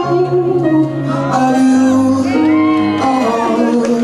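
Music: a slow love song with a singer holding long notes over sustained low accompaniment.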